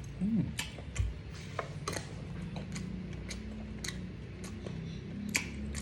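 Someone eating close to the microphone: scattered sharp clicks and smacks of chewing, over a low steady hum.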